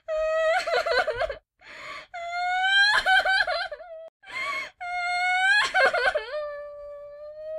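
A person's voice wailing in anguish three times, each wail wavering and breaking, with sharp gasping in-breaths between; the last wail settles into a long, steady held note.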